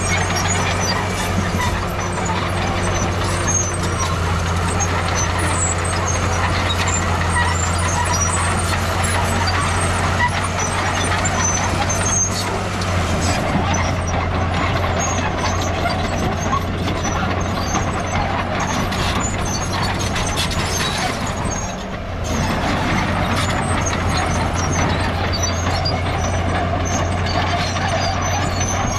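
Heavy diesel earthmoving machinery working: a large diesel engine running steadily under load, with scattered high metallic squeaks and clinks over it. The engine note drops briefly about three-quarters of the way through, then picks back up.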